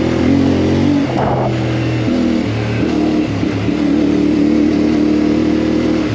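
CFMoto 450MT's parallel-twin engine running under way on a dirt track, its note shifting up and down a little as the throttle is worked, over a steady rush of wind and tyre noise.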